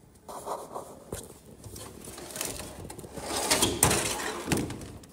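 Scraping, rubbing and a few sharp knocks of handling noise, getting louder and busiest about three and a half to four seconds in.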